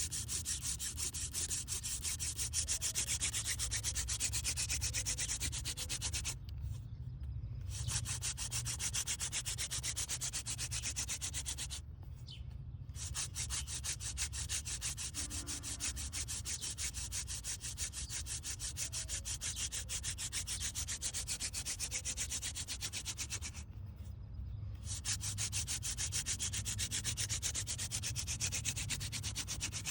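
Wooden hand-drill spindle being spun back and forth between the palms on a hearth board for friction fire, a fast rhythmic grinding scrape. It breaks off briefly three times, then starts again.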